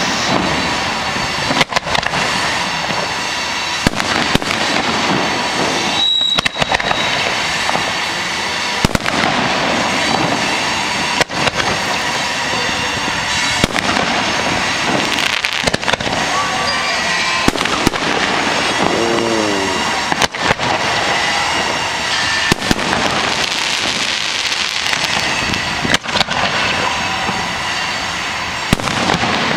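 Aerial fireworks display: shells launching and bursting in quick succession, sharp bangs every second or two over a steady hiss.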